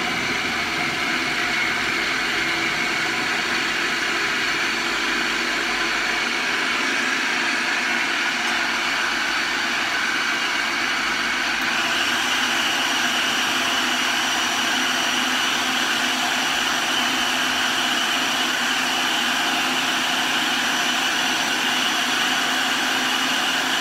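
Bosch MCM3501MGB food processor running steadily, blending scooped avocado and lime juice into a smooth avocado butter. The motor's whine steps up in pitch about halfway through.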